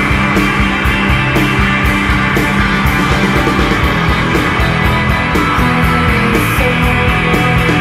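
Shoegaze rock song: a dense wall of distorted electric guitars over a steady drum beat.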